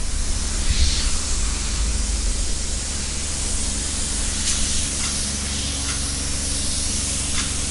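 Steady rushing wind noise on the microphone at an open construction site, with a few faint knocks about halfway through and near the end.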